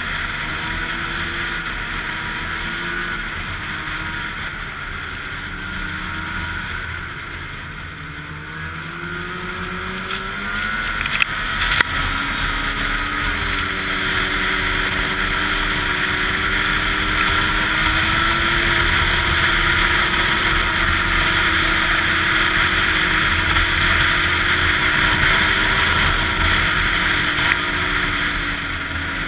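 Snowmobile engine running at trail speed, heard from the rider's seat with wind rushing over the microphone. The engine eases off and then picks up again about ten seconds in, with a couple of sharp knocks soon after, and runs louder for the rest.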